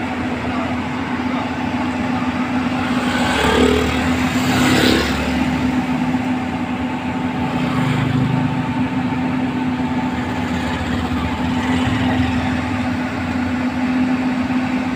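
Diesel engine of a Hyundai Robex 220 crawler excavator running with a steady hum, growing louder for a couple of seconds a few seconds in as the machine works.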